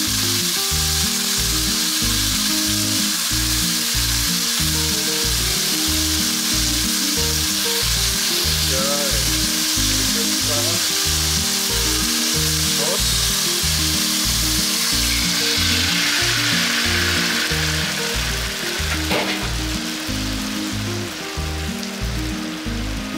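Chicken pieces frying in a pan, a steady dense sizzle that shifts in tone and turns uneven in the last few seconds, over background music with a steady beat.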